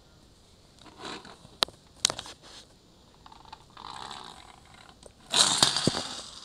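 Small plastic toy on a bike being rolled and pushed across a wooden floor: scattered clicks and scraping, with a louder rough scrape about five seconds in.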